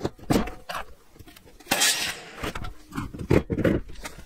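A heavy pressure-treated wooden post being handled on a plywood subfloor: a few dull knocks as it is tipped and set upright, with a brief scrape near the middle.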